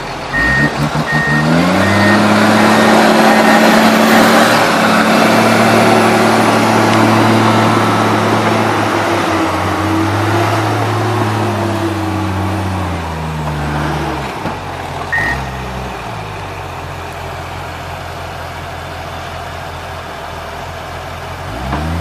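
Heavy diesel engines of a crawler dozer and a stuck forestry skidder revving up and pulling hard under load, then easing back to a lower, quieter run a little past halfway. A single reversing beep sounds about two-thirds of the way in.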